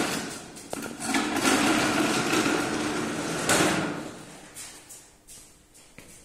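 A few knocks, then the plastic wheels of a child's ride-on toy car rolling across a tiled floor: a rattling rumble from about a second in that fades out around the four-second mark.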